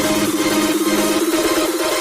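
Background electronic dance music with a fast, pulsing synth line.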